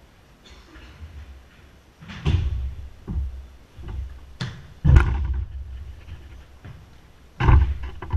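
Ball play in a jorkyball cage: about five hard thuds as the ball is kicked and slams against the walls, with room echo after each. The loudest comes about five seconds in, another near the end.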